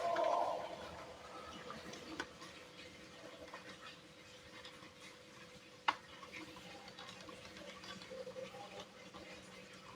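Marbles rolling and clattering down a wooden marble run. A knock with a short ringing decay comes right at the start, then a soft, uneven pattering with scattered light clicks, one sharper click about six seconds in.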